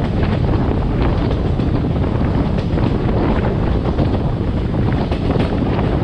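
Wind buffeting a microphone held out of a moving passenger train's window, over the steady rumble of the coach running along the track.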